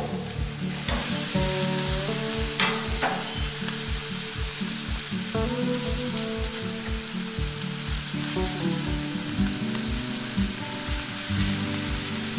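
Peri-peri chicken sizzling steadily on a braai grill over hot coals as it is turned and basted. Background music with a steady beat plays alongside.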